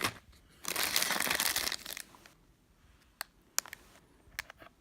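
Crinkly plastic snack packet rustling as it is handled for about a second, then a few light, sharp taps.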